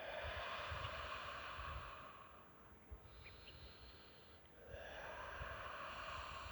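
A person doing lion's breath, a yoga breathing exercise: long, forceful breathy 'haaa' exhales through a wide-open mouth with the tongue out, like breath fogging glass. There are two exhales, one at the start and one from about two-thirds of the way through, with a quieter breath in through the nose between them.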